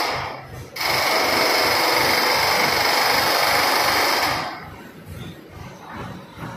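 A loud, steady mechanical whirring in two stretches: a brief one at the start, then a longer one of nearly four seconds from about a second in that cuts off sharply near the middle, leaving a low rumble.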